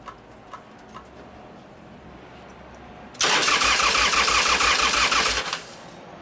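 Electric starter cranking a 1999 Harley-Davidson 80 ci Evolution V-twin for about two seconds without it catching, with a steady rhythm of compression pulses, after a few light clicks. The engine won't fire, which is taken for a lack of fuel or ignition.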